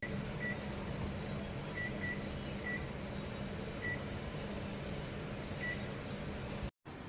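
An electric household appliance humming steadily while giving a series of short, high electronic beeps at uneven intervals.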